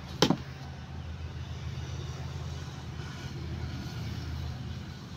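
One sharp crack of a wooden cricket bat striking the ball just after the start, over a steady low rumble.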